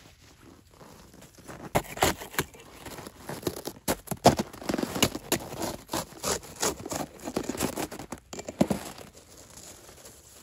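Hatchet blade chopping and scraping into a crust of frozen snow to cut out a slab: an irregular run of sharp, crunchy strikes, dying down about a second before the end.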